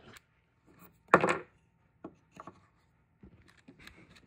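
Handling noise of a series of knocks and scrapes. The loudest is a dull clatter about a second in, followed by lighter taps and rubbing.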